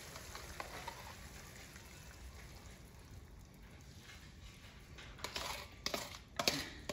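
Faint sizzling of diced chicken in a frying pan as teriyaki sauce is poured in, dying down. From about five seconds in come several sharp clicks and scrapes of a spoon against the sauce bowl.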